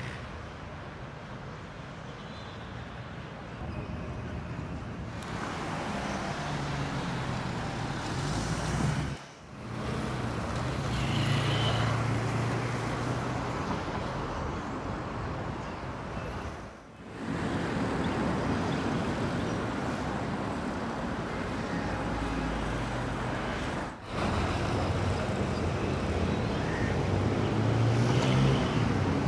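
Road traffic going by: a steady wash of car and truck engines and tyres. The sound drops out briefly three times.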